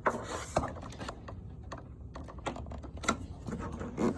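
Quick, irregular clicks and rattles of hands handling a desktop computer's cables and plugs, with a couple of sharper clicks about half a second in and near the end.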